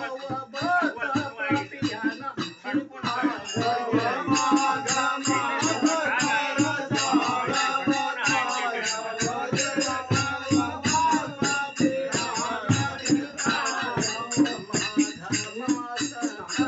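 Men singing a phag (Holi folk song) together, backed by a dholak drum beating a fast, steady rhythm.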